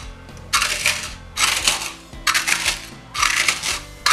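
Fried gond (edible gum) puffs crunching as a steel katori is pressed and ground over them in a steel bowl: four crunching, scraping strokes about a second apart, with another starting at the very end. Soft background music underneath.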